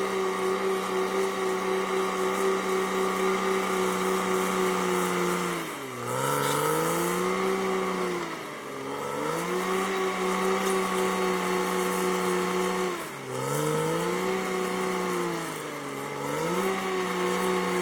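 The diesel engine of a CAT D6R XL crawler bulldozer running at high revs. Its pitch sags and recovers four times, each dip lasting about a second.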